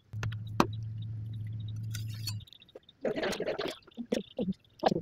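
A steady low hum for about two seconds, cut by one sharp click, then a brief rustle and a few light clinks as the cooked roti is taken off and a flat one is laid on the tawa.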